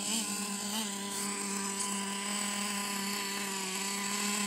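Traxxas T-Maxx 3.3's two-stroke nitro engine idling steadily, with two brief rises in pitch in the first second.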